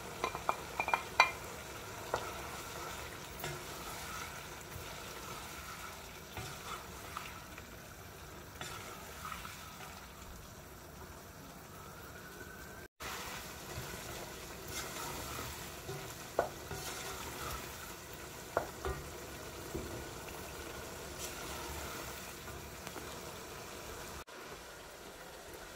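Chicken, tomatoes and chillies frying and sizzling steadily in a nonstick pot while a wooden spoon stirs them. A few light clicks and knocks come near the start and again later on.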